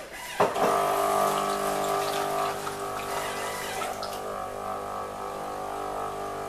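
Melitta CI Touch bean-to-cup coffee machine running its Easy Cleaning rinse of the milk system: a click about half a second in, then the pump humming steadily as it flushes water through the milk line and tube into the drip tray, with a watery hiss.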